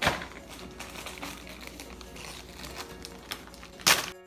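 Plastic food bags crinkling as they are handled, with a sharp crackle at the start and a louder one near the end as a resealable plastic bag is pulled open.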